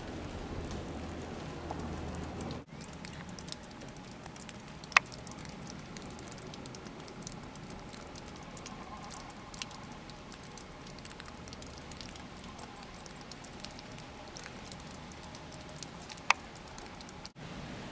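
Falling snow pattering steadily, with many small sharp ticks and two louder ones about five seconds in and near the end; the sound cuts out briefly a few seconds in.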